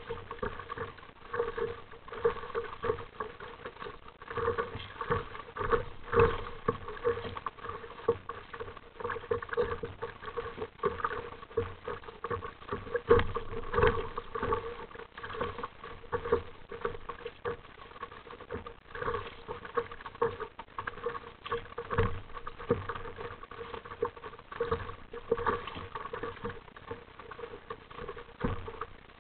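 Sea water splashing and slapping against the plastic hull of a paddled RTM Mambo sit-on-top kayak, with paddle strokes splashing alongside: a continuous run of irregular splashes and knocks.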